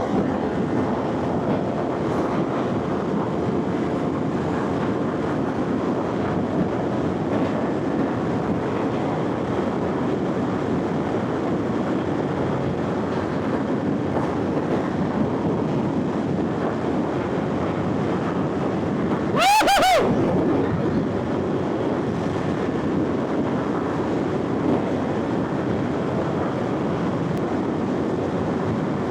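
Motorcycle riding at speed: steady engine and wind noise, with a brief loud pitched blast that rises and falls about two-thirds of the way through.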